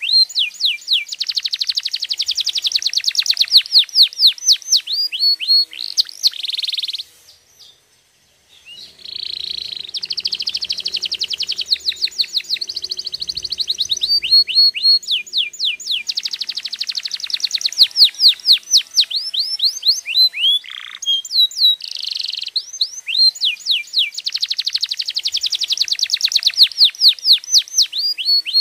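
Domestic canary singing: fast rolling trills of repeated falling notes, with brief pauses and a clean break of about a second and a half near a quarter of the way in before the song resumes.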